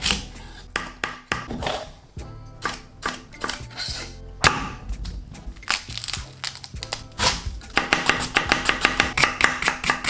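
Chef's knife cutting vegetables on a cutting board: scattered knife strikes and swishes, then from about eight seconds in fast, even chopping. Background music plays underneath.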